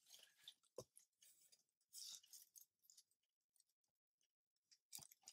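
Near silence, with a few faint, short clicks and ticks.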